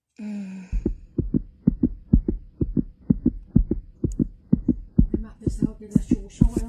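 Heartbeat sound effect: a fast, even lub-dub of low thumps, about two beats a second, starting just under a second in, over a faint steady hum, played as the heartbeat heard through a stethoscope on a pregnant belly.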